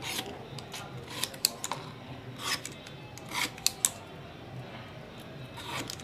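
A small hand tool scraping and clicking against the copper winding wire of a ceiling-fan motor's stator, in short irregular strokes with a cluster of sharp clicks around the middle, over a faint steady low hum.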